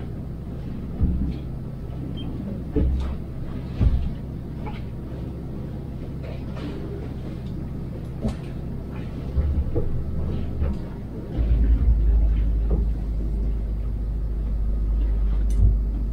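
Boat engine running steadily under way, heard from inside the pilothouse cabin, with a few sharp knocks from the boat working in the chop. A deeper, louder low rumble sets in about eleven seconds in.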